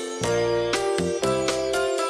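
Music: bright, chiming pitched notes at about four a second over a bass line.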